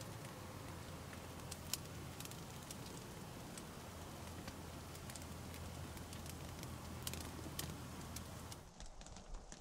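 Faint outdoor ambience: a steady low rumble with scattered small clicks and ticks, which drops away suddenly near the end.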